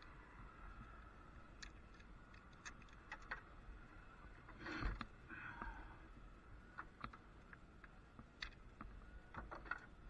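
Faint, scattered clicks and taps of hand tools and cable hardware being handled in a lineman's aerial bucket, with a brief louder rustle about five seconds in.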